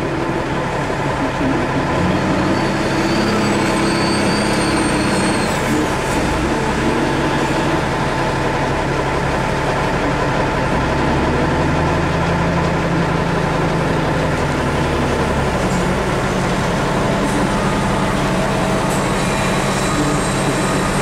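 Heavy diesel engines running steadily: a wheel loader working close by, carrying a bucket of sand, heard over the truck's own idling engine. The loader's engine note deepens and grows louder for a few seconds midway, and a faint high whine comes and goes a few seconds in.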